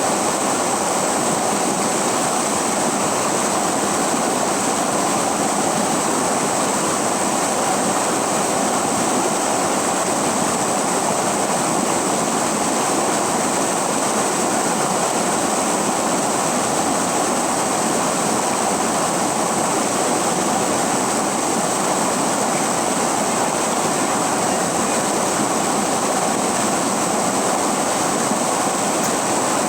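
River water flowing, a steady, unbroken rush of water noise.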